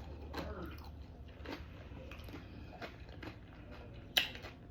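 Close-up chewing and mouth sounds of a person eating a mouthful of brisket queso dip with salsa roja: small wet smacks and clicks, with one sharper click about four seconds in.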